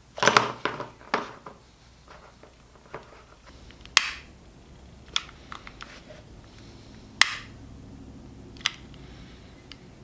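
A long-nosed utility lighter's igniter clicking sharply four times, a second or more apart, as it is lit to burn and seal the tied-off stitching thread on a leather sheath. Soft handling of thread and leather in the first second or so.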